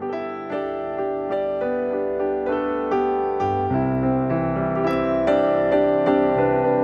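Background piano music: a gentle keyboard melody with chords, notes struck at a steady pace and getting louder.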